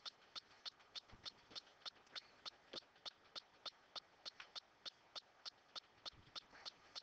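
Faint, steady ticking, about three ticks a second, over near silence.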